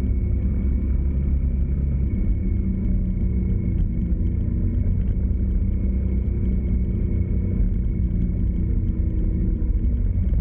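A motor vehicle driving steadily: low engine hum under continuous road and wind rumble.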